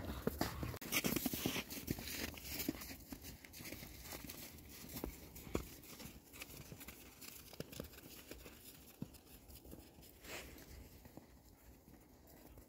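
Footsteps crunching in snow, irregular and scattered, with a louder rustling, crunching stretch in the first couple of seconds that then thins to sparse, quieter crunches.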